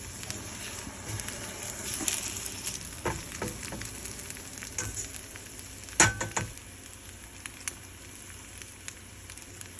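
Eggs frying and sizzling in a pan, with a cooking utensil knocking and scraping against the pan several times; the loudest knock comes about six seconds in.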